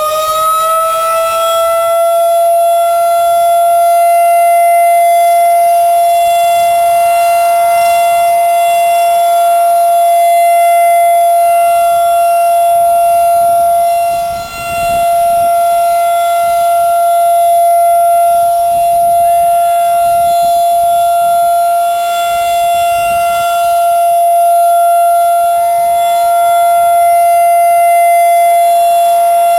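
Outdoor tornado warning siren sounding during its monthly test: it finishes climbing in pitch in the first second, then holds one steady pitch, loud, its loudness slowly swelling and easing, with a short dip about halfway through.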